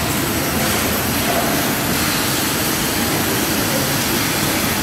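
Cantilever single-twist wire stranding machine running at speed: a loud, steady rushing whir from the spinning machine.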